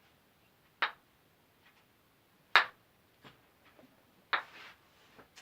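Wooden kendama ball clacking against the cups of the ken during a trick attempt: three sharp clacks about two seconds apart, the middle one loudest, with a few faint taps between them.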